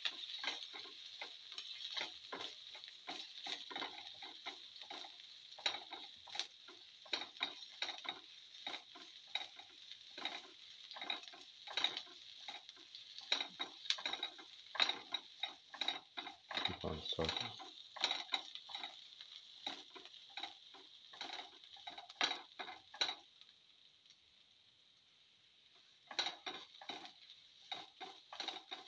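A spatula stirring and scraping sautéing shallots, ginger and mustard and cumin seeds in a hot oiled pan, in many irregular strokes over a steady sizzle. The stirring stops for about two seconds near the end, then resumes.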